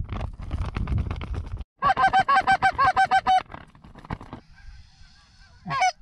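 Canada goose calling, most likely a hunter's hand-blown goose call: a loud, fast run of sharp clucks about seven a second for a second and a half, after low rustling noise. Fainter honks follow, then one drawn-out honk near the end.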